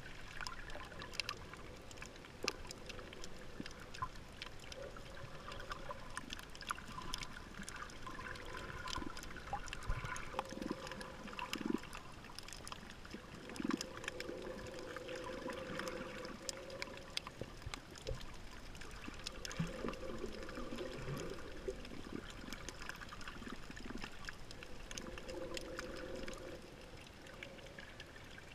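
Underwater water noise heard through a camera held below the surface while snorkeling: muffled sloshing and bubbling that swells and fades every few seconds, over a steady crackle of many small clicks.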